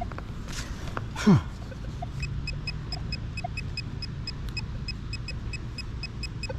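A handheld metal-detecting pinpointer beeping rapidly, about five short high beeps a second, starting about two seconds in: it is close to the target in the hole. About a second in, one brief louder sound slides down in pitch.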